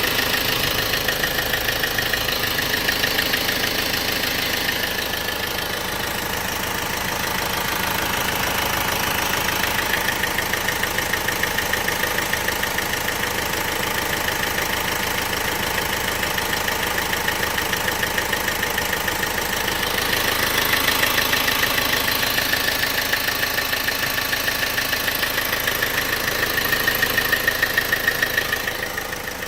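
1.6 CDTi diesel engine idling steadily, with a fast, even ticking running through its sound.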